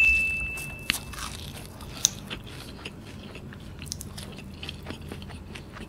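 Close-miked eating of a cheese kunafa: biting and chewing, with many small crisp crackles from the shredded kataifi pastry and wet mouth sounds. A short, steady high tone sounds at the very start and stops about a second in.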